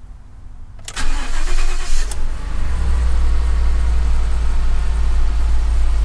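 Ford F-150 engine starting, heard from inside the cab: about a second in the starter cranks briefly, the engine catches, and it settles into a steady idle.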